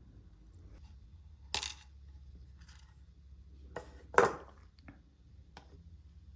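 Small metal pieces clinking as they are set down on a hard work surface: a few sharp clinks with a short ring, the loudest about four seconds in.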